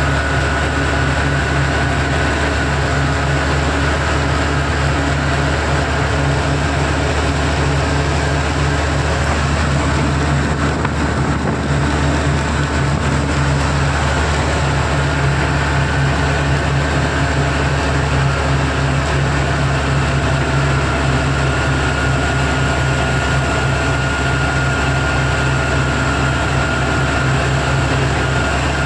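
Mobile crane's diesel engine droning steadily with road and wind noise, heard inside its cab while cruising on a highway.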